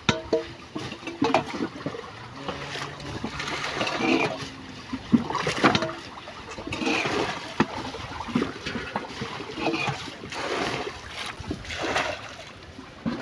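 Water splashing and dripping as a wet fine-mesh net is hauled by hand out of a lake into a wooden boat, with irregular splashes and knocks.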